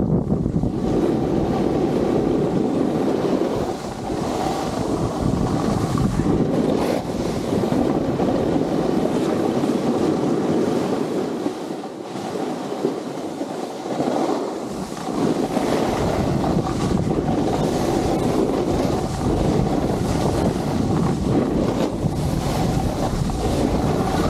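Wind rushing over an Insta360 action camera's microphone as the skier moves downhill, a steady buffeting roar that eases for a few seconds about halfway through.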